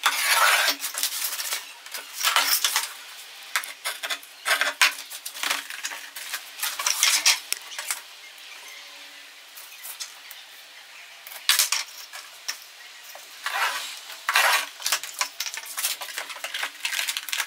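Utility knife scoring a plastic sheet along a metal straightedge, in a series of scraping strokes each lasting a second or less, mixed with the clatter of the sheet and tools being handled. A faint steady hum runs underneath.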